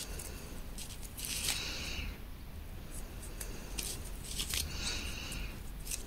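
Faint rustling and scraping of a crochet hook and gold thread as single crochet stitches are worked, in a string of short, irregular strokes.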